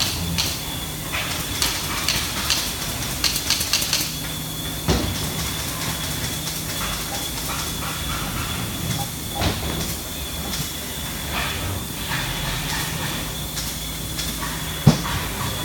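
Factory-floor noise: a steady machine hum with hiss, scattered clicks and clanks, and one sharp metal knock near the end.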